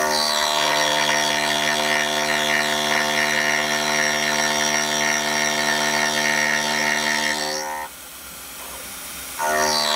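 A 12 mm single-insert indexable endmill on a CNC mill spindle at 4600 rpm, rough-cutting St37 mild steel: a loud, steady cutting noise over a pitched tone. About eight seconds in it drops to the quieter whir of the spindle as the cutter leaves the cut, then bites in and cuts again just before the end.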